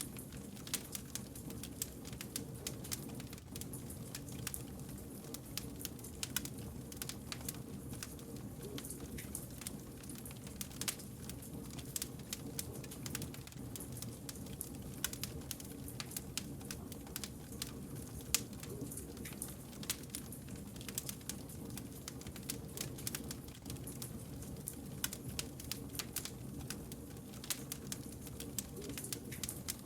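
Wood fire crackling: a dense, irregular run of small sharp pops and snaps over a low, steady background hum.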